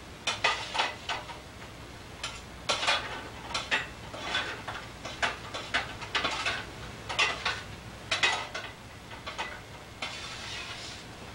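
A spatula scraping under freshly baked cookies on an ungreased cookie sheet and setting them on a plate, in a series of irregular short scrapes and clinks.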